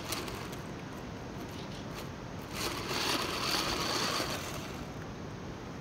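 Faint steady outdoor hiss, with a louder whirring stretch of about a second and a half in the middle: the small electric gear motors and plastic tracks of a 3D-printed RC tank driving over wet asphalt.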